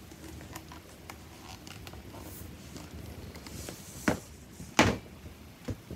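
Light clicks and handling noise, then two sharp knocks about four and five seconds in and a smaller one near the end: framed pictures being put down and handled.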